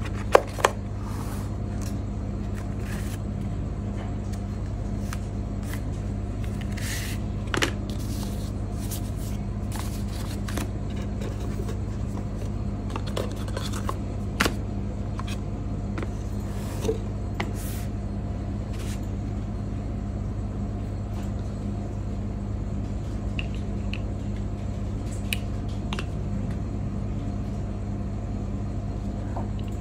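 A cardboard box and paper inserts handled by hand: scattered light taps, slides and paper rustles, busiest in the first two-thirds and then only a few soft clicks, over a steady low hum.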